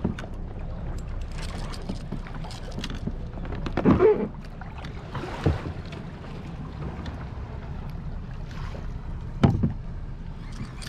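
Wind buffeting the microphone and water lapping against a plastic kayak hull at sea. There are a few louder sudden sounds about four, five and a half and nine and a half seconds in.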